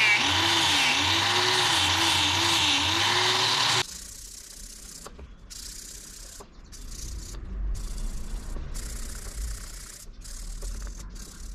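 Angle grinder fitted with a sanding disc running under load as a knife blade is pressed against it, its whine dipping and rising with the pressure; it cuts off about four seconds in. After that, a sharpening stone rubs along the knife's edge in strokes about a second apart.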